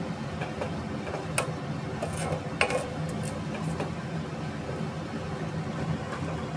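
Metal spoon stirring and scraping thick syrupy vermicelli in a steel pot, with a few sharp clinks against the pot. A steady low hum sits underneath.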